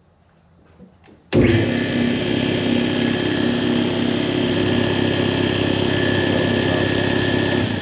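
Porter Cable Jetstream air compressor's electric motor and cast-iron pump starting suddenly about a second in and running steadily. Near the end it shuts off and a hiss of air rises from the pressure switch's unloader, air escaping that points to a faulty check valve rather than a bad pressure switch.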